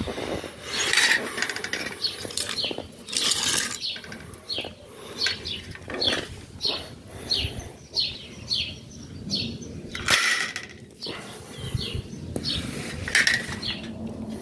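Small birds chirping over and over in short, high, falling notes, with a few louder clattering noises from a wire grilling basket being handled, about a second in, about three seconds in and about ten seconds in.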